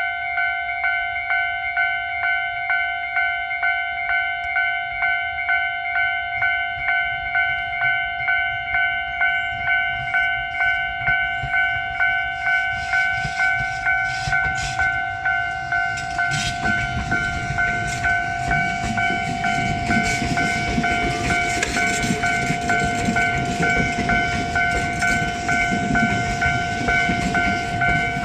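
Japanese level-crossing warning bell ringing in steady, evenly repeated dings. From about twelve seconds in, a Tobu 10000-series electric train rolls in under the bell, its wheels clicking over rail joints, and the train noise stays to the end.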